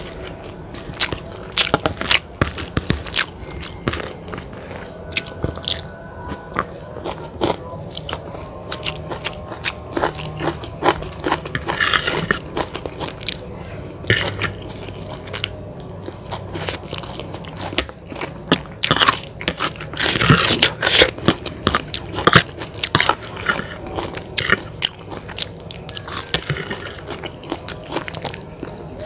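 Close-miked eating sounds: a person biting and chewing mouthfuls of chicken noodles in balado chili seasoning, with many sharp crunchy clicks coming in irregular clusters.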